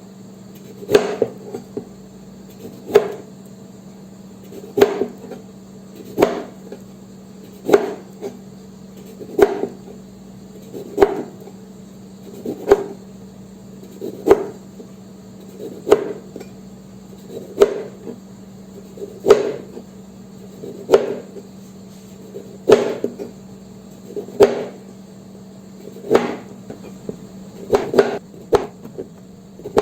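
Slow, regular knocks, one about every one and a half to two seconds, over a steady low hum.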